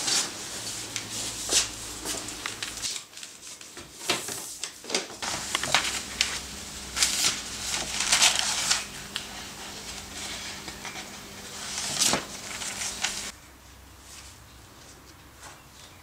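Barber's scissors snipping, with short handling clicks, and a faint steady electric hum through the middle part that stops a few seconds before the end.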